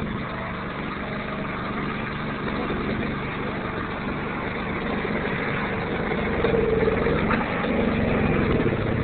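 Lifted golf cart's engine running as it drives off-road, getting louder over the last few seconds.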